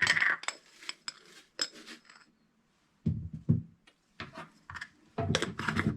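Light clinks and taps of kitchen containers and utensils as chlorella is added to a blender jar for a smoothie. Short ringing clinks come in the first two seconds, a few duller knocks follow about three seconds in, and a quick clatter comes near the end.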